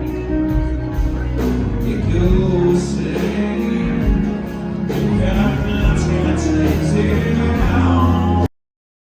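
Rock band playing, with a male singer and guitar over a steady beat; it cuts off abruptly near the end.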